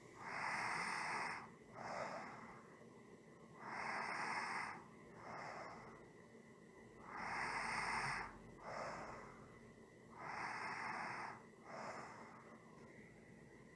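A person breathing slowly and evenly: four breath cycles, each a longer, louder breath followed by a short, softer one, repeating about every three and a half seconds.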